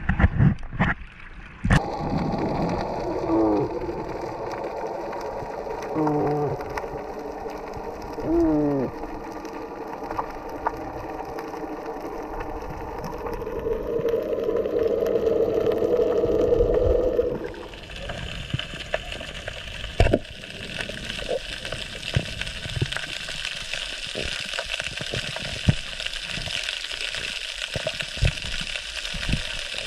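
Underwater sound through the camera housing: a boat's outboard motor drones steadily with a few short pitch swoops and swells louder before fading about two-thirds in. After that the water is full of a hissing crackle of small clicks.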